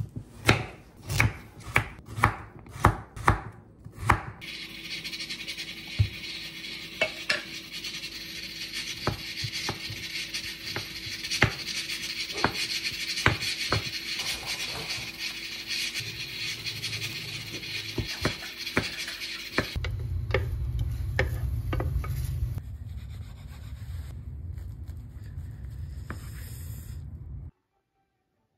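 Kitchen knife chopping a carrot on a wooden cutting board: sharp, regular knocks about two a second at first, then sparser cuts over a steady hiss. The sound cuts off suddenly near the end.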